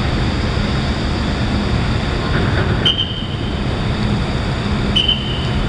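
Steady low engine rumble, with two short high chirps about two seconds apart.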